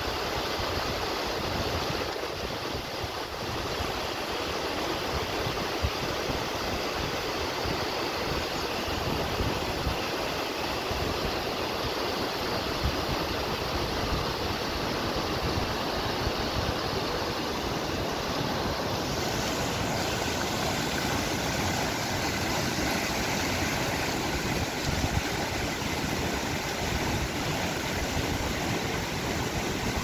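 Steady rushing of a large mountain waterfall and the white-water stream below it: a constant noise without pauses.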